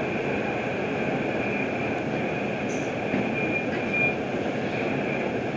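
New York City subway train moving slowly through a station: a steady rumble of steel wheels on rail with a thin, steady high-pitched wheel squeal over it.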